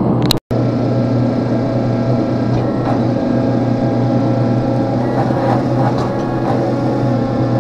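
Steady mechanical hum of the running gas forge blower and shop forging machinery, with a few faint clicks; the sound cuts out for an instant about half a second in.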